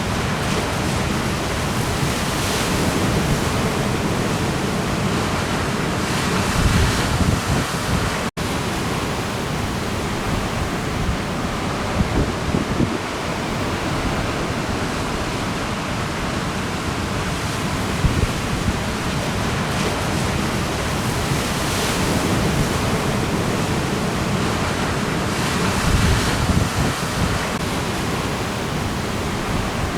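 Ocean surf breaking, with trade wind buffeting the camera microphone: a steady rush of noise that surges in gusts. The sound cuts out for an instant about eight seconds in.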